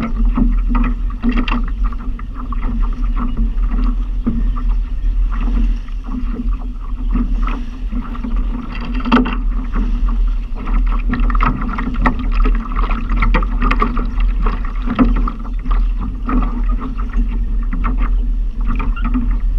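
Steady low wind rumble on the microphone, with choppy water lapping and splashing against a Laser dinghy's hull in irregular slaps.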